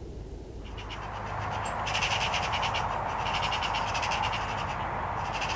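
Magpies chattering: harsh, fast rattling calls in several bursts, starting about half a second in, over a steady background hiss.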